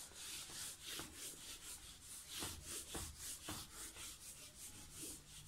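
Whiteboard eraser wiping marker writing off a whiteboard in quick back-and-forth rubbing strokes, about three to four a second.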